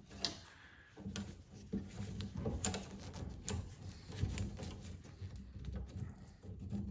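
Irregular light clicks, taps and rustles of hands handling parts and tools on a lawn mower.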